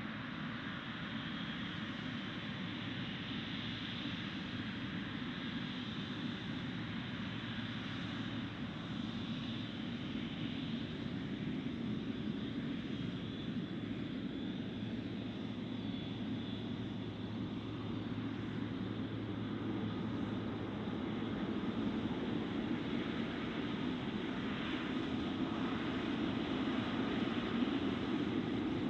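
Boeing 777-300ER's twin GE90-115B turbofans running steadily at taxi power, growing louder over the last several seconds as the airliner draws nearer.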